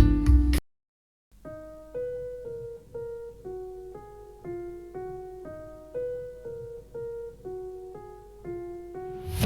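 Music test track played back through in-ear earphones: a quiet keyboard melody of single notes, about two a second, with each note fading away. It begins after a loud track breaks off into a short silence near the start.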